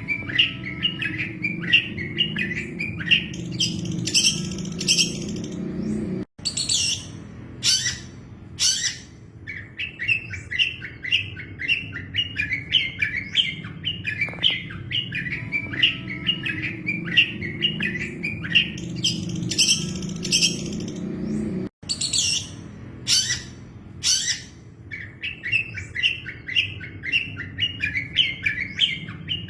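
Long-tailed shrike (cendet) song recording: fast runs of chattering chirps broken by sharp, high, piercing calls, over a steady low rumble. The recording is a loop that repeats about every 15 seconds, with a brief break in the sound where it joins.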